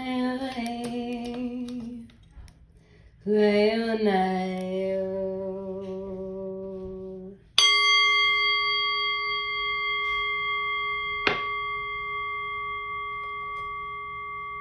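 A woman's voice holds two long sung tones, the first wavering as it begins, the second lower and steadier. Then a singing bowl is struck once and rings with several steady overtones, fading slowly, with a single light tap a few seconds into the ring.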